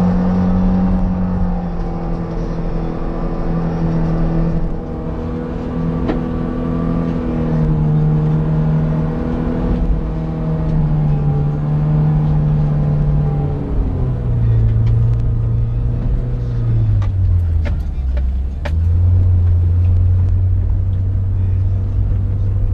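Car engine under load climbing a muddy slope, its revs wavering up and down, then dropping about two-thirds of the way through to a lower, steady note. A few sharp clicks near the end.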